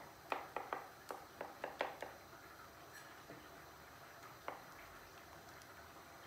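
Faint clicks and taps of a wooden spoon against a ceramic plate as thick eggplant purée is spooned out and spread: about eight in the first two seconds, then one more tap about four and a half seconds in.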